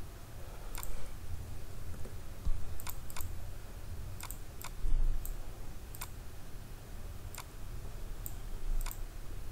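Computer mouse clicking: about a dozen sharp clicks at irregular intervals, over a steady low hum.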